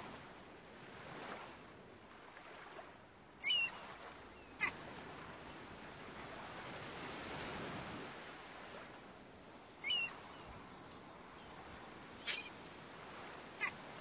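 Seaside ambience: waves washing in slow swells, with gulls calling in short, high cries about five times.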